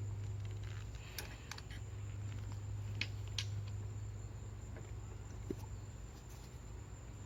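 A few light clicks and taps of engine parts being handled during a coil-pack swap, over a steady high-pitched insect chirring and a low hum.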